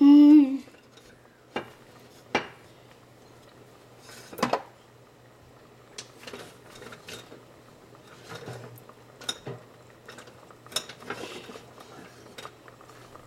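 Scattered clinks and taps of kitchen utensils and cookware: a few sharp clicks in the first five seconds, then lighter ticks and taps. A short voice sound comes right at the start and is the loudest thing here.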